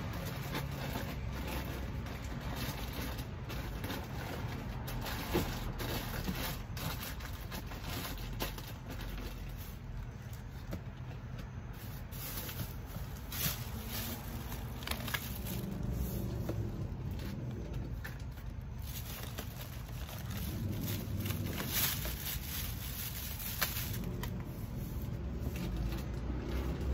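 Goods being handled and packed into a cardboard box: scattered rustles, clicks and light knocks over a steady low rumble.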